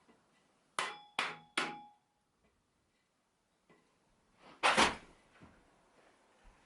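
Rubber mallet striking the end of a makeshift PVC-pipe installer, driving a crown race down onto a bicycle fork's steerer tube: three quick blows that make the pipe ring briefly, then one louder, heavier knock near the end.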